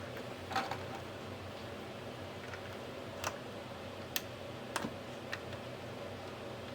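A handful of scattered light clicks and taps from small plastic parts and wires of a Bluetooth radio being handled during reassembly, the loudest about half a second in, over a faint steady hum.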